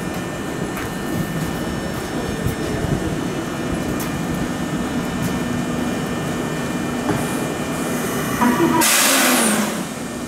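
Kintetsu electric commuter train running slowly into the platform and drawing to a stop, with a steady low hum. Near the end comes a loud hiss of air lasting about a second as it stops.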